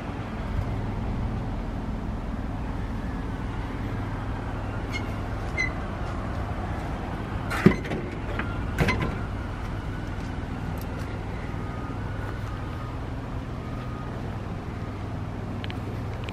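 Pacific P9 water truck's engine idling steadily. Two sharp metallic knocks come about seven and a half and nine seconds in.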